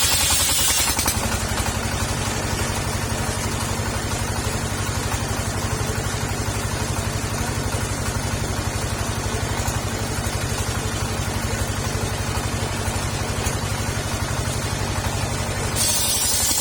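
Petrol-engine-driven circular saw running steadily, the engine's hum even throughout. A louder high hiss comes over it in the first second and again about a second before the end.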